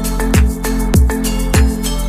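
Background music with a steady beat of kick drums and sustained notes.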